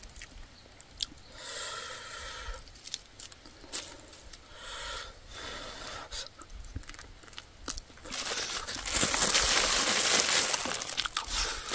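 Close-up eating sounds: small clicks of chewing and picking at roasted rat meat, then from about eight seconds in a loud, continuous crinkling of a plastic bag as a spoon scoops rice out of it.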